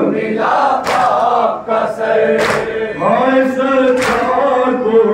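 Men's voices chanting a noha, the Shia mourning lament for Muharram, in unison in long sung lines. Three sharp slaps of matam, the mourners beating their chests together, land in a regular beat about a second and a half apart.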